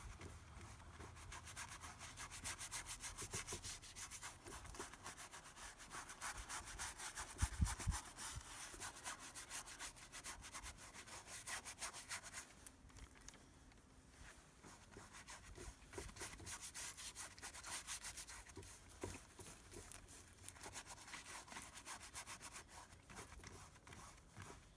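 Brush scrubbing oil paint onto a stretched canvas in quick, scratchy strokes, with a lull about halfway through. A brief low thump about seven seconds in.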